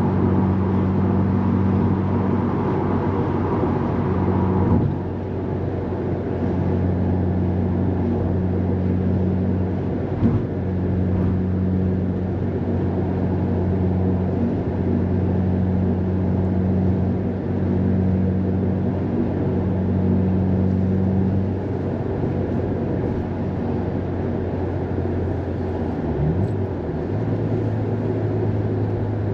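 Subaru WRX STI's turbocharged flat-four engine heard from inside the cabin while driving: a steady low engine drone over road noise. About five seconds in the sound drops a little and the higher tones fall away, and near the end the engine note briefly wavers and settles at a new steady pitch.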